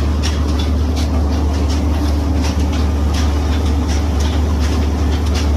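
Mill machinery running steadily: a loud, even low hum with frequent light clicks and rattles over it.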